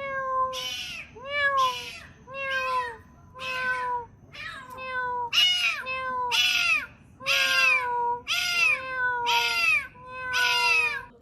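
A cat meowing over and over, short arching meows coming more than once a second without a break.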